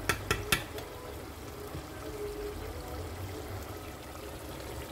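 A metal spoon knocks three times against the rim of a metal pot within the first half second, then tomato stew simmers in the pot with a steady low bubbling.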